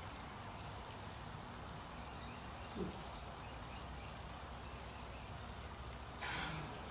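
Steady outdoor background noise with faint, scattered bird chirps. A brief low falling sound about three seconds in, and a short hiss about six seconds in.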